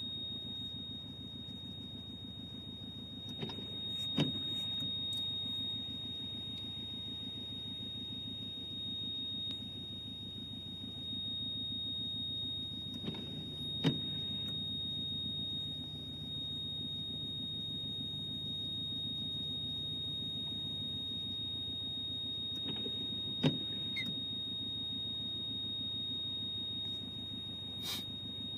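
A Subaru Legacy's unexplained beeping noise: a steady high-pitched tone that holds without a break, over a low hum. Sharp clicks sound about every ten seconds.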